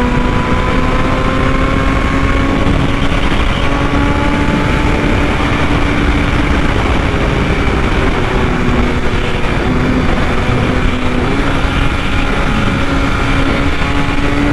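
BMW S1000RR's inline-four engine running at high, steady revs at highway speed, its pitch climbing gently, dipping briefly about two-thirds of the way through and rising again, over heavy wind rush.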